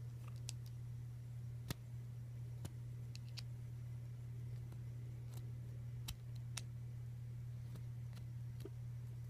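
Scattered small clicks and taps, about eight over the stretch and irregularly spaced, over a steady low hum.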